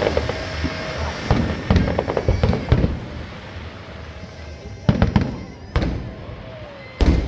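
Aerial fireworks going off: a rapid run of crackling bangs for the first few seconds, then three loud booms about a second apart.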